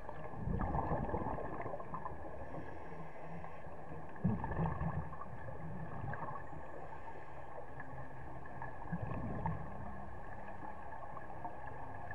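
Underwater sound of a scuba diver breathing through a regulator: exhaled bubbles gurgle in three surges about four seconds apart, over a steady underwater hiss with a faint high hum.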